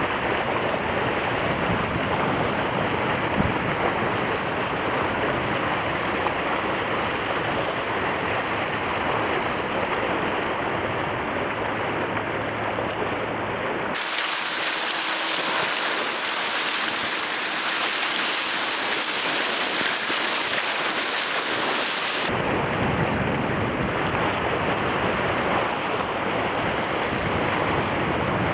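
Wind buffeting the microphone over waves washing against shore rocks: a steady rushing noise. About halfway through it turns to a thinner, brighter hiss without the low rumble for some eight seconds, then the rumble returns.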